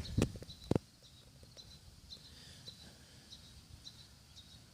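Two sharp clicks in the first second, then a small bird's short, high chirps repeating every half second or so.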